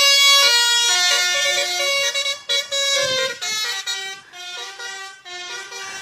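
Lorry's multi-tone telolet basuri air horn playing a tune of stepped notes, loud at first, then fainter and broken after about three seconds as the lorry pulls away.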